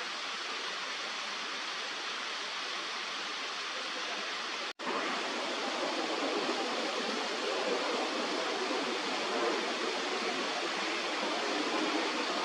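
Steady rush of running water from a shallow stream. It breaks off for an instant about five seconds in and comes back louder and fuller.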